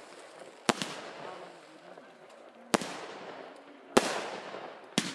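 Aerial fireworks bursting overhead: four sharp bangs, roughly a second or two apart, each trailing off as it fades. The first comes with a quick second crack right behind it.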